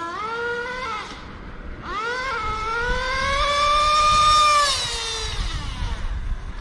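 Small nitro engine of a 1/10 GS Racing Vision RTH RC truck running a speed run. It revs in short blips and a burst, then is held on the throttle with a high whine that climbs steadily in pitch, peaks, and falls away near the end.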